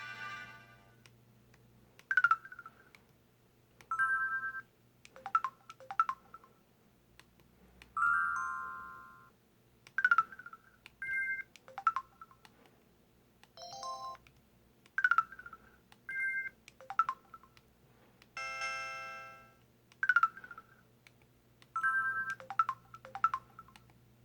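Samsung Anycall SPH-W2500 phone's built-in effect and alert tones played one after another: a string of short electronic chimes and beeps, each different, about one every second or two, two of them held a little longer as chords.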